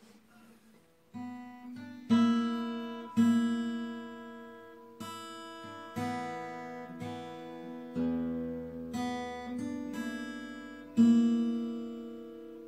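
1956 Martin 00-18 small-bodied acoustic guitar with bronze strings, played with the fingers. A few soft notes come first, then chords struck about once a second, each left to ring and fade, with a deep bass note coming in about eight seconds in.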